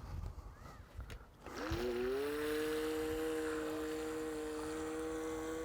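Revell Tide Breaker RC speedboat's electric motor and propeller starting up about a second and a half in with a brief rising whine, then running at a steady pitch. It starts on its own as the water sensor detects water, spinning even with no throttle applied, a sign the throttle trim is set too high.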